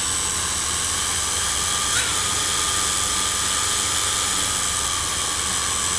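A quadrotor's four electric motors and propellers running on a test bench: a steady whine over a rushing hiss. The pitch jumps up briefly about two seconds in, then settles as the motor speed changes.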